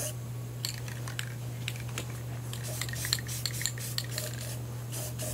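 Aerosol spray-paint can being shaken, its mixing ball rattling in quick, irregular clicks.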